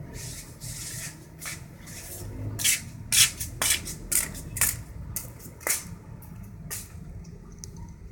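Rabbits eating grass: a run of short, crisp crunching and rustling noises at irregular intervals of about half a second, loudest in the middle, over a steady low background rumble.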